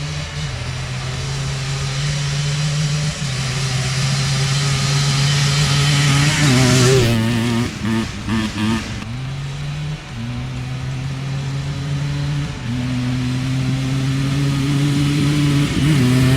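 Big-bore Yamaha Blaster 200 ATV's two-stroke single-cylinder engine running under riding, its pitch stepping down and up several times as the throttle and gears change. Around the middle the engine note rises and turns choppy for a couple of seconds, then settles back into a steady pull.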